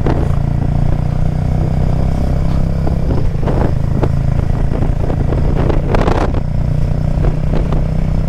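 Benelli Imperiale 400's single-cylinder engine running steadily as the motorcycle is ridden, with a few short bursts of noise over it, the clearest about six seconds in.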